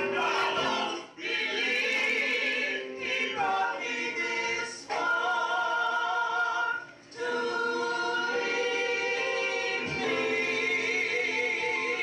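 Church choir singing, holding long chords with brief breaks between phrases.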